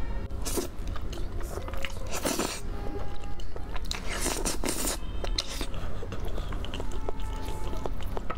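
Close-miked eating: spicy fire-chicken instant noodles slurped and chewed, with crunchy bites and wet chewing clicks. There are loud slurping rushes about two seconds in and again around four to five seconds in.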